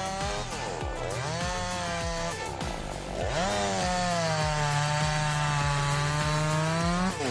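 Two-stroke chainsaw running at high revs while cutting wood. Its pitch dips and recovers several times, then holds high and steady for a few seconds and drops near the end.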